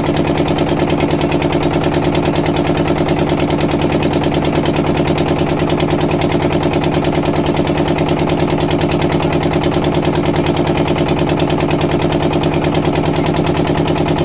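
Boat engine running steadily with a fast, even pulsing beat.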